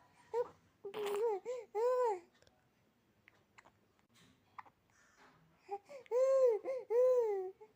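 Baby fussing: short whimpering cries, each rising and falling in pitch, in two bouts of about four a few seconds apart. The baby is upset by repeated hiccups.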